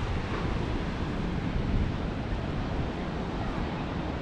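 Strong wind rumbling across the microphone over a steady rush of sea surf.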